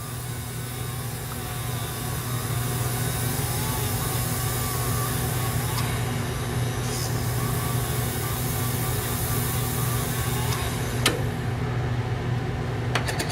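Graver-sharpening machine's motor running steadily with its yellow rubber wheel spinning while a diamond dresser is held against it to clean the wheel, a wavering tone over the steady hum. A sharp click about eleven seconds in and a few ticks near the end.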